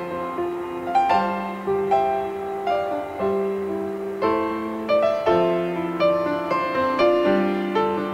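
Background piano music, a slow melody with a note or chord struck about once a second.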